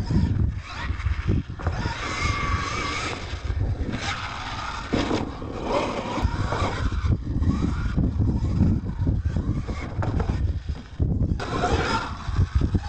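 Radio-controlled monster truck driving on dirt, its motor whining and rising and falling in pitch as it revs, with tyres scrabbling on the dirt.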